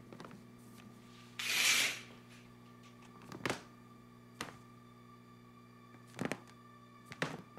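Footsteps on a hard floor: four separate, unevenly spaced steps as a person in sneakers walks off. A short rustling hiss comes about a second and a half in, over a steady low hum of room tone.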